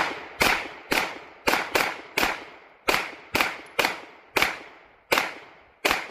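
Springfield Echelon 9mm pistol fired in a rapid string of about a dozen shots, roughly two a second at an uneven pace, each sharp crack trailing off briefly before the next.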